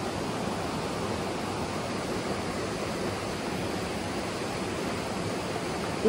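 Mountain stream running over rocks in a shallow riffle: a steady, even rush of water.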